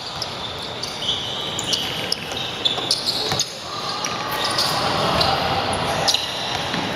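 Basketball game in play: the ball bouncing on the court and sneakers squeaking in short high chirps, over a steady background of voices from players and spectators.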